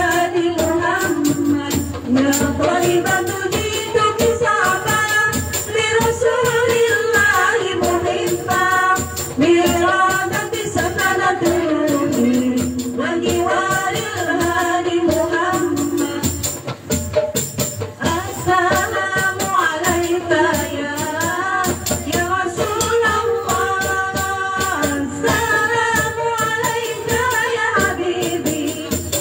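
Hadroh ensemble performing: several female voices sing an Islamic devotional song together through microphones and a PA, over a steady beat of frame drums with jingles.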